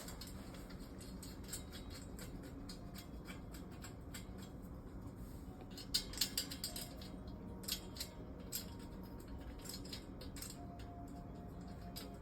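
Light metallic clicks and clinks as the tool rack's parts and fasteners are handled and threaded in finger-tight by hand, with a few sharper clicks past the middle.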